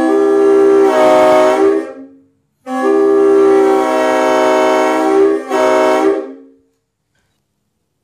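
Homemade PVC replica of a Leslie RS-5T five-chime air train horn, blown on 40 psi of compressed air: two blasts of its multi-note chord, the first about two seconds long, the second about four seconds with a brief dip near its end.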